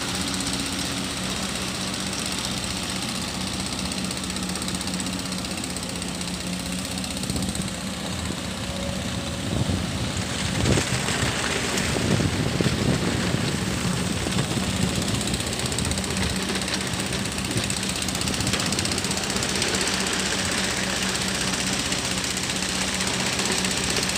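Kobelco hydraulic excavator's diesel engine running steadily as it digs mud and swings the loaded bucket, with a louder, rougher stretch about halfway through as the machine works harder.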